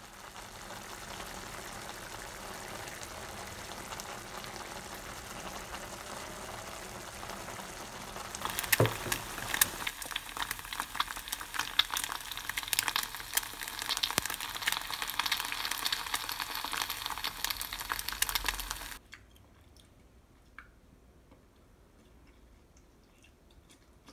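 A pan of spicy braised chicken stew simmering with a steady bubbling hiss. About eight seconds in it gives way to eggs frying in a pan, a louder dense sizzle and crackle of oil that stops about nineteen seconds in.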